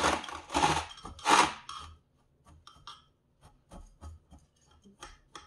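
Gritty potting soil scraped and pressed by a gloved hand in an earthenware pot: three rasping scrapes in the first two seconds, then light scattered ticks of grit and tools.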